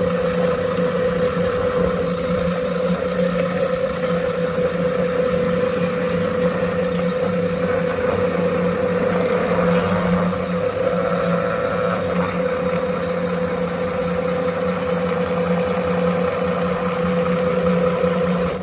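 Electric drum-style chicken plucker running with a steady motor hum as its spinning rubber fingers tumble a bird, with water hissing from a garden-hose spray nozzle. It cuts off right at the end.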